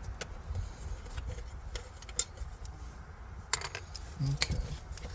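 Faint clicks and light metal handling as the last screws are worked out of a car-dash radio bracket, with a few sharper clicks about three and a half seconds in.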